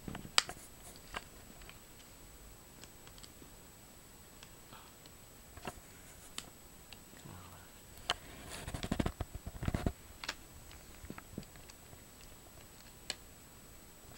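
Sparse small clicks and taps from hands and a screwdriver working on a netbook's plastic screen bezel and display panel, with a short bout of denser rustling and knocking about nine seconds in.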